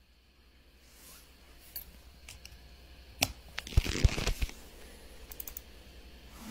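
Quiet handling noise: soft rustling with a few light knocks and clicks, bunched a little past the middle.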